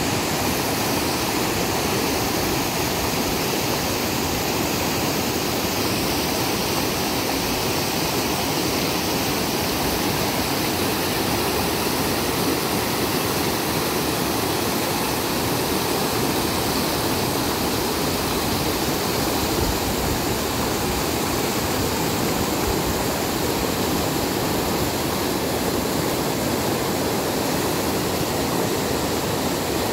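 A swollen, muddy river rushing through rapids over boulders: a steady, unbroken rush of white water.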